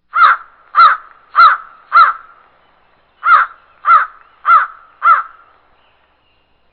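A bird calling: two runs of four harsh calls, evenly spaced about half a second apart, with a short pause between the runs.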